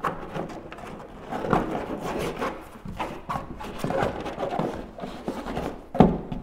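Hands working a cord on a skin-on-frame kayak's deck, with irregular rubbing, rustling and small knocks. A sharper knock comes about six seconds in.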